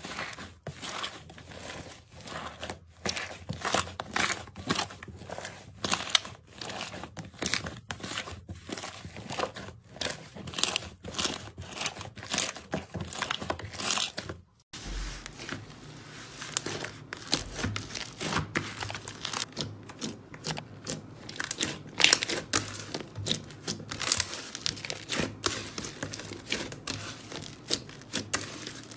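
Slime being squeezed and kneaded by hand, giving dense, irregular crackles and pops. The sound breaks off briefly about halfway through, then the crackling goes on with another slime being stretched and pressed.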